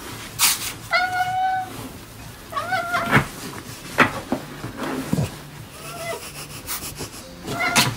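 Maine coon cat meowing three times: a long, level meow about a second in, a rising one near three seconds and a short one near six seconds. Sharp rustles and bumps from the cat being handled in the crib bedding fall between the meows.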